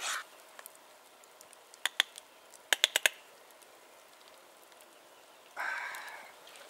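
Metal spoon clinking against a camp pot of cooked omelette: a few sharp taps about two seconds in, a quick run of four about three seconds in, then a longer metallic scrape near the end.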